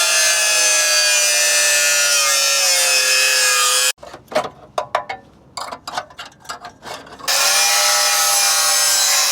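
Angle grinder sanding back rusted steel: a loud high whine whose pitch sags slightly under load, cut off abruptly about four seconds in. Irregular scrapes and knocks follow, and the grinder runs again for the last two seconds.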